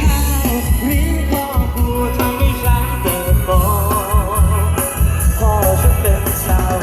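A song with a singer over a strong, pulsing bass, played loudly through a PA sound system: an NPE F8000 power amplifier driving four 18-inch bass speakers.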